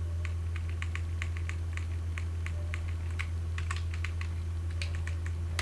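Typing on a computer keyboard: irregular key clicks, a few a second, over a steady low hum.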